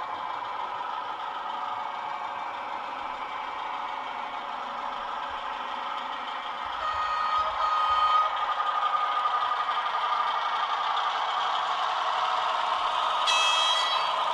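H0 scale model train running on the layout's track: a steady rolling and motor whir that gets louder about seven seconds in as the diesel locomotive and crane train come out of the tunnel. A short high tone sounds near the end.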